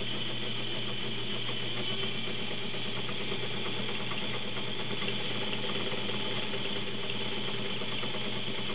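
Vintage Kenmore model 35 sewing machine running steadily at speed, sewing a zigzag stitch through fabric: an even motor whir with fast, regular needle strokes.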